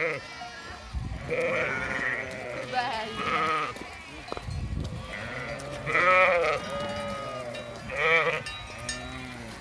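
A flock of sheep and lambs bleating: repeated quavering calls at different pitches, several overlapping, with a few louder ones about six and eight seconds in.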